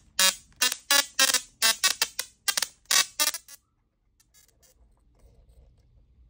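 Small musical Tesla coil playing a tune through its spark discharge: a quick run of short buzzy notes, about four a second, that stops abruptly about three and a half seconds in, leaving only a faint low hum and a few soft clicks.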